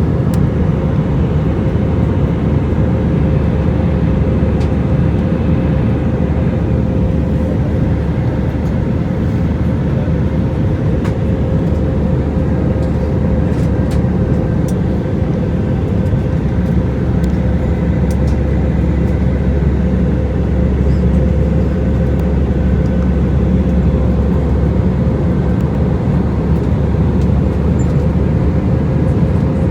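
Airbus A319 cabin noise in flight: a steady, loud rumble of the engines and airflow, with a constant hum running through it and a few faint ticks.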